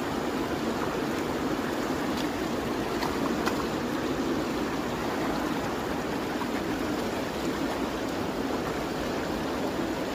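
Steady rush of shallow creek water, with water swishing as a plastic gold pan full of gravel is shaken just under the surface.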